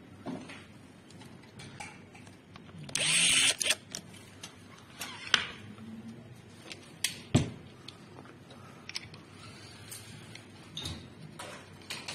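Clicks and knocks of a camera fluid head's plastic and metal parts being handled and fitted onto its mounting plate, with a brief loud rasp about three seconds in.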